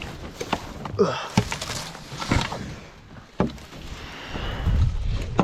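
Hunting gear being packed up: a run of irregular knocks and clatters with rustling between them, and a brief falling squeak about a second in.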